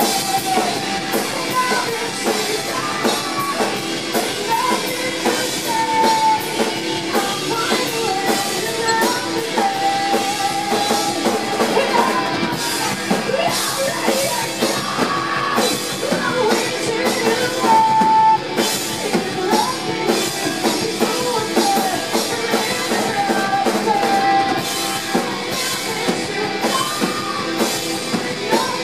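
Live rock band playing loud: a woman singing held, wavering notes into a microphone over electric guitars and a drum kit.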